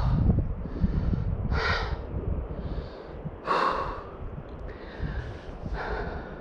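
A person breathing hard, three heavy breaths about two seconds apart, catching her breath after a steep uphill climb. Wind rumbles low on the microphone underneath.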